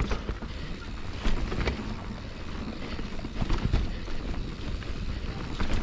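Mountain bike riding down a soaked, muddy trail: the tyres rush through the wet ground and the bike rattles, with several sharp knocks over bumps, and wind blows over the microphone.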